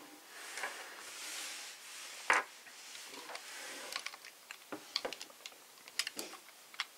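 Hard plastic action figure and toy vehicle being handled: a soft scrape during the first two seconds, a sharp plastic clack about two seconds in, then scattered small clicks of plastic parts as the figure is worked loose from the vehicle.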